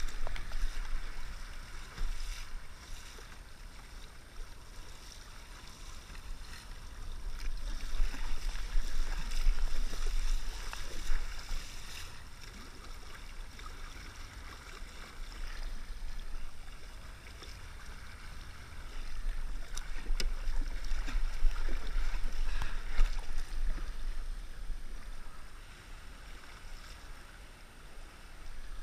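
Kayak paddle strokes splashing and water washing along the hull of a sit-on-top kayak, swelling and fading with each stretch of strokes, over a low wind rumble on the microphone.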